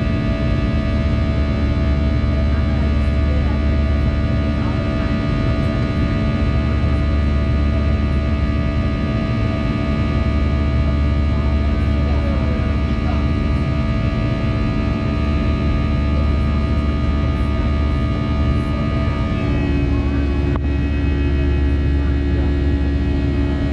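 Airbus A320-214's CFM56-5B turbofan at high climb-out thrust, heard through the cabin wall beside it: a loud, steady buzzsaw of many held tones over a deep rumble. The buzzsaw comes from the fan blade tips running faster than sound at high power. About twenty seconds in, its tones shift abruptly.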